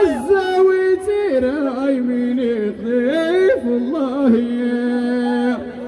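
Ahwash singing: a single voice sings a slow, ornamented melodic line, holding long notes and sliding between them in turns.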